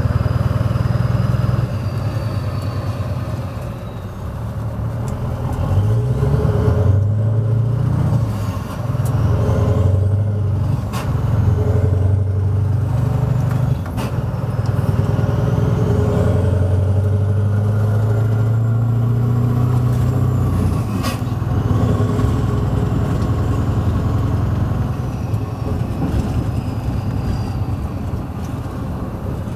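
Scania R500 V8 truck engine with loud exhaust pipes, heard from inside the cab while driving. Its note climbs and drops back in steps several times, from about six to twelve seconds in, then holds a steady pull. There is a short sharp click about 21 seconds in.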